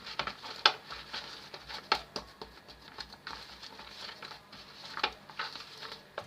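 Hands kneading oiled bread dough: irregular soft slaps and squishes, a few each second.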